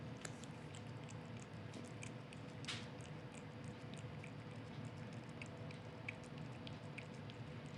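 A cat licking a lickable chicken paste treat from a squeeze tube: faint, quick wet clicks and smacks of the tongue, several a second, with one louder smack a little under three seconds in.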